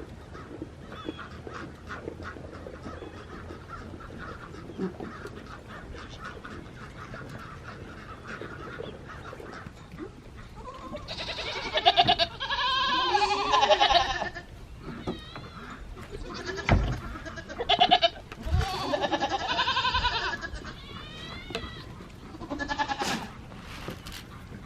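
Nigerian dwarf goats bleating: after a quiet start, a run of long, loud bleats about halfway through and another a few seconds later.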